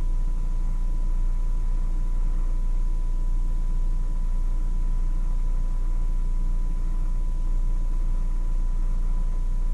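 Steady low rumble with a faint hiss and a thin, constant high tone, unchanging throughout.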